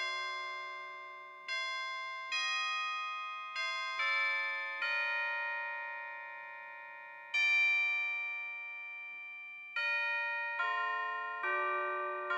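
Slow hymn introduction played as single bell-like struck notes, about ten of them, each ringing and fading before the next; the loudest comes about midway.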